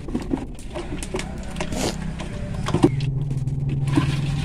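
A steady low engine hum that settles into a firmer, even drone about three seconds in, over small wet clicks and splashes of gram-flour batter being beaten by hand in a steel bowl.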